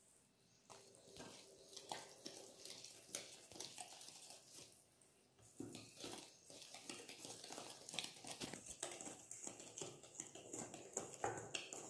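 Wire whisk stirring wet chocolate cake batter in a stainless steel bowl, faint: soft squelching with irregular clicks and scrapes of the whisk against the metal, becoming louder and busier about halfway through.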